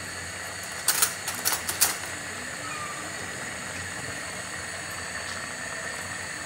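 Metal cutlery clinking in a kitchen drawer as a teaspoon is picked out: a quick run of sharp clicks about a second in. A steady hiss goes on under it and after it.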